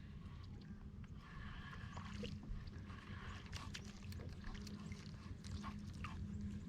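Faint clicks and knocks of handling in a kayak, over a low steady hum.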